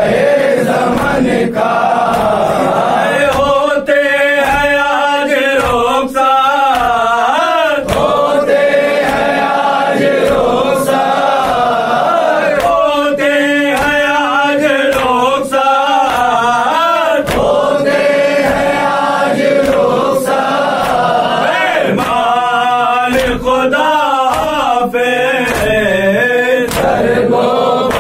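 Men chanting a Urdu nauha lament in chorus, the melody wavering and rising and falling. Sharp slaps land roughly once a second throughout: mourners beating their chests in matam.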